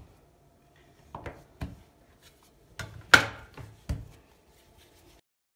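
Dough scraper chopping through soft yeast dough and knocking against the countertop: about five sharp knocks, the loudest about three seconds in, with soft handling of the dough between them.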